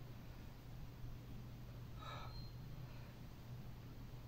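A person's short, sharp breath about two seconds in, taken while doing a bodyweight exercise, over a faint steady low hum.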